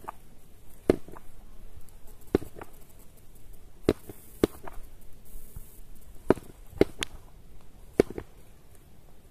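Two land tortoises knocking their shells together: about eight sharp, hollow clacks at uneven spacing, roughly one every second or so, some coming in quick pairs.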